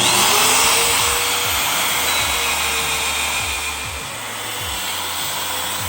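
A power tool cutting a 1-inch hole through steel plate, giving a loud, steady hissing noise that starts abruptly, with a faint steady whine under it.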